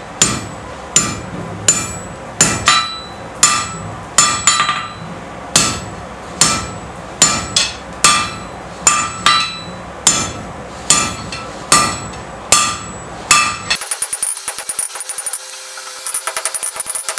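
Hand hammer striking a red-hot steel bar on an anvil, about once every three-quarters of a second and sometimes in quick pairs, each blow ringing metallically: forging the blade of a herb chopper. Near the end the blows give way to a fast, fainter ticking.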